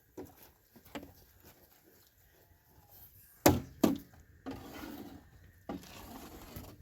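Two sharp, loud wooden knocks about half a second apart, after a couple of lighter knocks, followed by a stretch of scraping and rustling.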